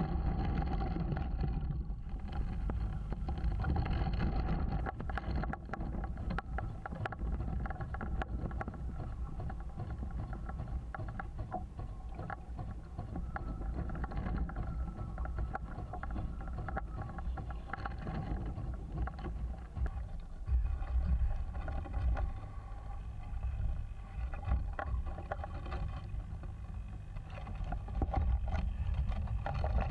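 Wind buffeting the mast-mounted camera's microphone on a small RC sailing yacht, with water splashing and rushing along the hull as it sails. There are a few louder gusts in the second half, the last as the boat heels far over.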